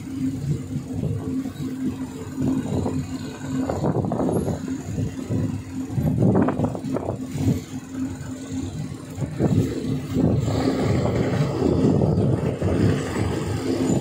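Diesel passenger train running on the rails: a steady engine hum under irregular rumbling and knocks, with more hiss and a little more loudness after about ten seconds.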